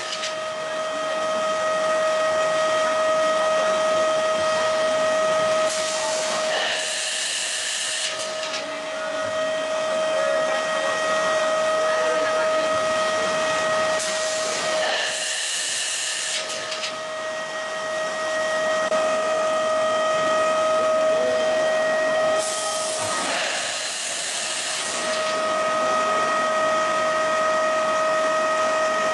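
Automatic ice lolly production machine running: a steady hum with a whine above it, over constant hiss. About every eight seconds there is a loud hissing burst lasting around two seconds, during which the hum drops out.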